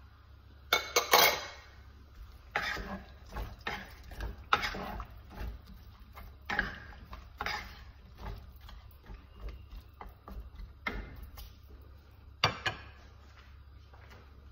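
Wooden spatula stirring chopped tomatoes and onions in a non-stick pot: a run of short scraping and knocking strokes against the pot. A louder clatter about a second in and another sharp knock near the end.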